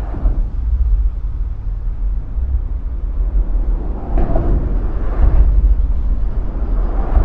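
Deep, steady rumbling and quaking of the Lions Gate suspension bridge's structure, mostly very low in pitch, swelling louder about four seconds in and again near the end.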